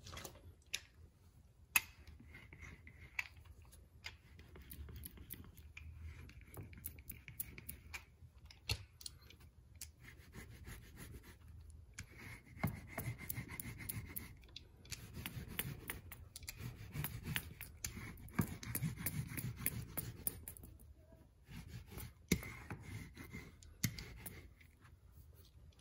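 Wire-bristled carpet brush scratching back and forth through carpet pile, brushing the fibres of a carpet patch repair. The strokes come in runs of several seconds with short pauses between them.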